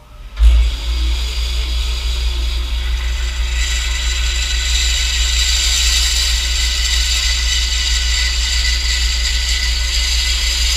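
Bandsaw switched on about half a second in, its motor starting with a thump and then running steadily with a low hum. From about three and a half seconds the blade is cutting into the wooden dovetail block, and the sound grows louder and higher.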